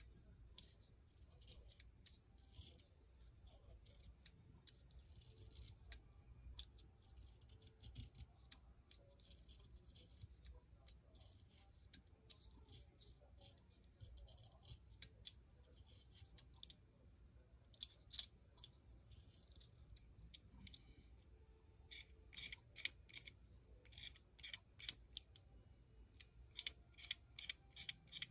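Snap-off cutter knife blade shaving wood from a Shu Uemura Hard Formula eyebrow pencil: a series of short, crisp scrapes, faint at first and louder and quicker, about two a second, over the last six seconds.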